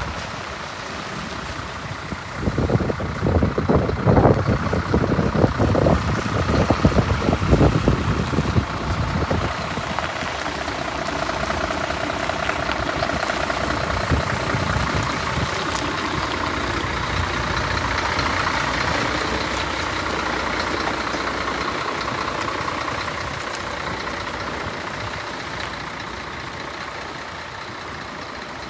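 Scania P380 truck's diesel engine running at idle, steady throughout. Irregular low thumps and rumble in the first several seconds are the loudest part.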